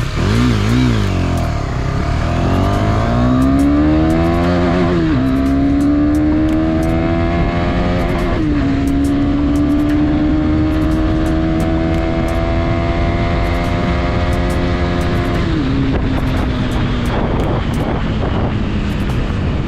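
KTM Duke 250's single-cylinder engine accelerating hard through the gears. The revs climb, drop with an upshift about five seconds in and again about eight and a half seconds in, then climb once more before falling away as the throttle closes near the end. Wind rush follows.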